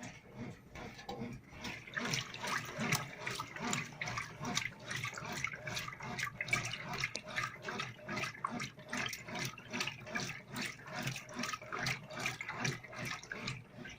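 Water sloshing and splashing inside a washing machine during a wash cycle: a dense, irregular run of splashes at an even level.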